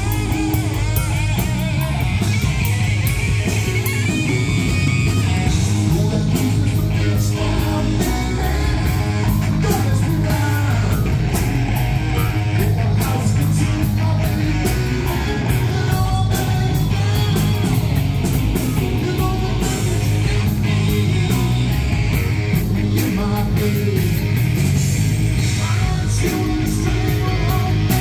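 Live rock band playing: electric guitars through Marshall amplifiers, bass guitar and a drum kit with steady cymbal hits.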